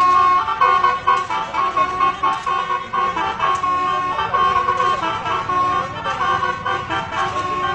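A bus's telolet horn, a multi-tone air horn, playing a quick tune of short notes that follow one another with hardly a gap, the notes pulsing louder in the first second or so.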